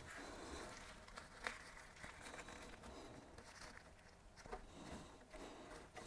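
Near silence, with a few faint, soft clicks and rustles of gloved hands pressing a resin-wet carbon fibre patch into a bike frame.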